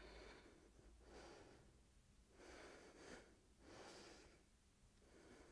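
Faint breathing of a woman holding a yoga pose: about four slow, soft breaths, each a short rush of air.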